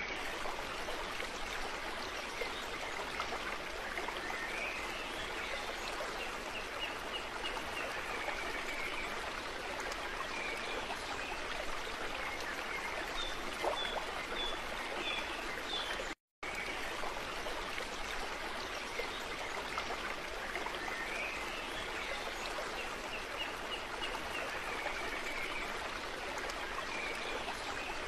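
Steady running water, like a stream, with high chirping calls now and then. It breaks off for a moment just past halfway and then starts over.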